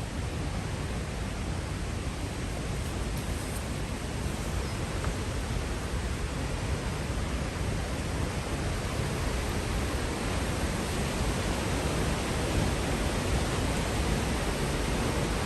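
Waterfall running in full spate after heavy rain: a steady roar of falling water that gradually grows louder.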